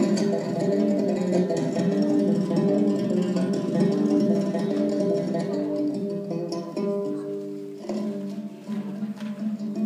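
Solo Kazakh dombra playing a kui: quick repeated plucked notes over a steady drone string. The playing grows softer about two-thirds through, then a sharp stroke brings it back up.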